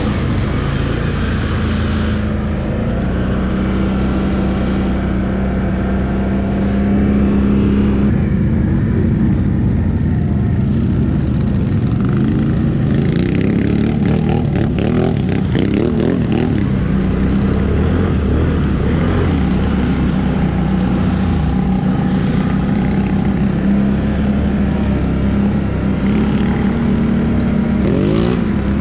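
ATV engine running loud and steady, with its pitch rising and falling as the throttle is worked a little past the middle and again near the end.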